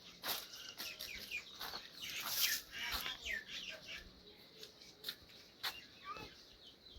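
Birds chirping in short, quick calls, mixed with scattered clicks and knocks.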